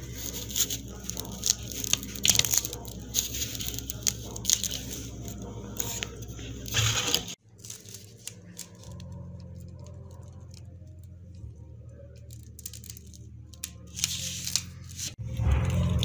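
Fingers handling a small die-cast toy ambulance: a quick run of clicks and scrapes as its tiny door and body are worked. After a sudden cut about seven seconds in comes a quieter stretch with a low steady hum and faint rubbing as a decal is pressed on.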